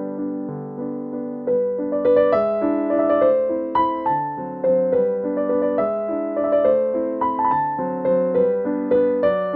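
Background music: gentle piano, playing a melody of struck notes that each fade away.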